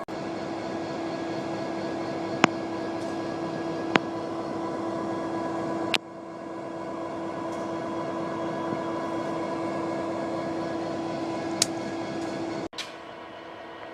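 Diesel locomotives running with a steady engine drone, and a few sharp clicks scattered through it. The sound drops away abruptly twice, about six seconds in and near the end.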